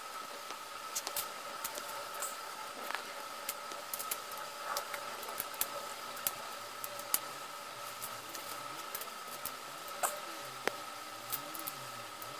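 Plastic Lego bricks being handled and pressed together: scattered small clicks and taps at irregular intervals, over a faint steady whine in the background.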